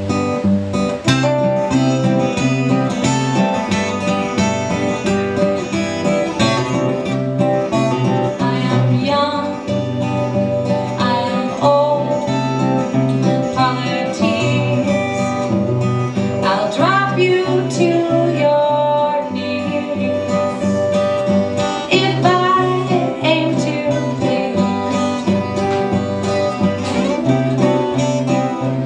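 Two acoustic guitars played together live, strummed chords over a repeating bass-note pattern.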